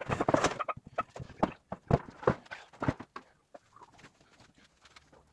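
Irregular knocks and metallic clatter from handling an armchair's steel spring unit on a plywood board. It is busiest in the first half second, then gives a few single sharp knocks and dies away after about three seconds.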